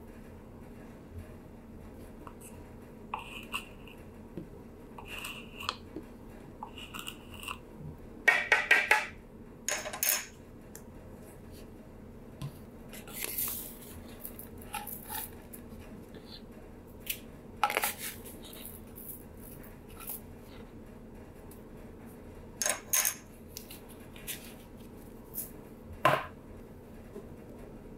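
Kitchen handling while measuring dry ingredients: measuring spoons clinking and tapping, and baking powder and salt containers handled and set down on the counter. The sounds come as scattered light clicks, taps and rustles, the loudest about eight to ten seconds in, over a low steady hum.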